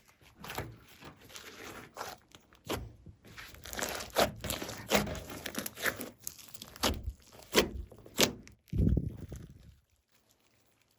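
Glossy slime being worked by hand, making irregular sticky pops, crackles and squelches, with one heavier squish about nine seconds in.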